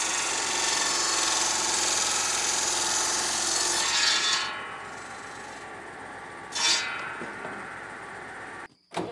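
Circular saw bench ripping a long timber beam lengthwise, a loud cutting noise that eases off about four seconds in as the cut finishes. The blade keeps spinning freely after that, with one brief loud burst about six and a half seconds in.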